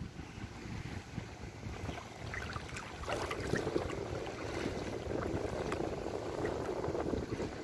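Shallow seawater sloshing and splashing close to the microphone, over a low rumble of wind on the microphone. The splashing grows louder about three seconds in.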